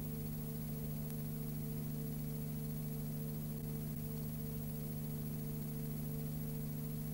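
Steady low electrical hum with a constant hiss and no other sound: the noise floor of a transfer of silent Super 8 film.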